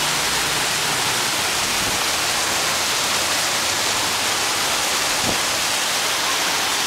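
Heavy monsoon rain pouring down, a steady dense hiss with no let-up.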